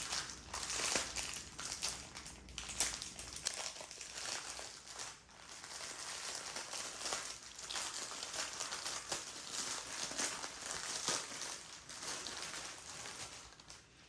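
Plastic packaging of diamond painting drills crinkling and rustling as it is handled and torn open, in uneven bursts.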